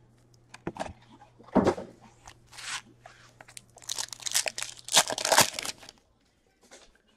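Foil wrapper of an Upper Deck Series 2 hockey card pack being torn open and crinkled by hand, with scattered rustles first and the loudest run of tearing and crackling from about four to five and a half seconds in.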